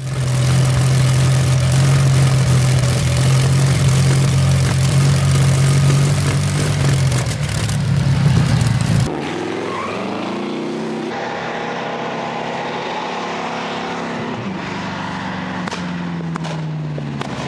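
A Napier Lion W12 aero engine runs loud and steady through open exhaust stubs, with a deep, even drone. About nine seconds in it cuts to the same 24-litre W12 in the Napier-Bentley racing car under way, quieter, its revs rising and falling.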